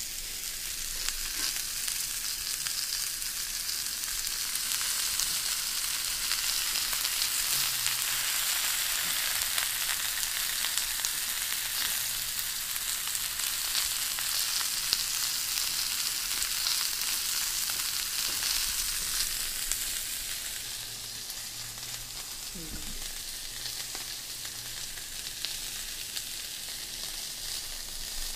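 Seasoned pork chops sizzling on a ridged electric grill plate: a steady frying hiss that swells a little, then eases off about two-thirds of the way through.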